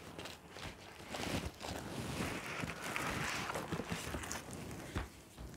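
Plastic wrapping and packaging rustling and crinkling as they are handled and pulled off a boxed plaque, with a few soft knocks.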